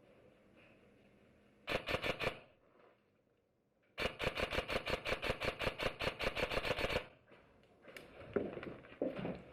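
Electric airsoft rifle, a Systema PTW, firing full-auto: a short burst about two seconds in, then a longer rapid burst of about three seconds. Some softer knocks and rustling follow near the end.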